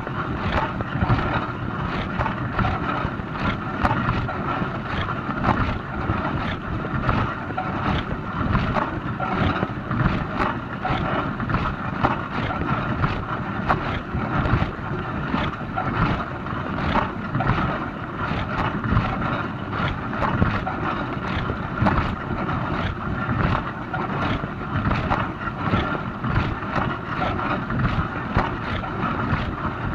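Dishwasher running its wash cycle: a steady rush of water spraying inside the tub, with constant irregular splashing.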